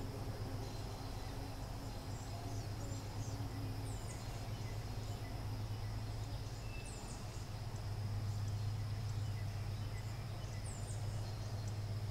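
Outdoor background: a steady low hum, with a small bird's short, high, thin call repeating about every three seconds and a faint steady high whine over it.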